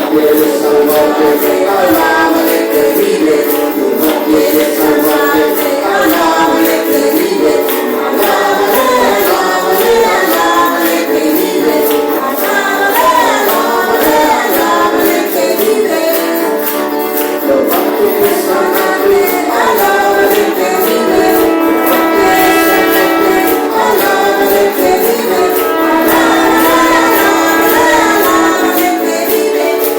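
Church worship music: voices singing a praise song over instrumental accompaniment, with a steady high percussion beat.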